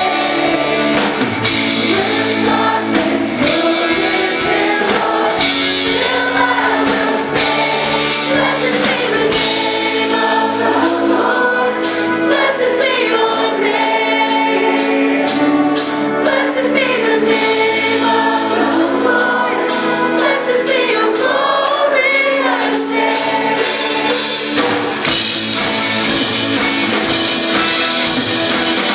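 Live band playing a worship song with singing over sustained chords, with steady drumming through the middle.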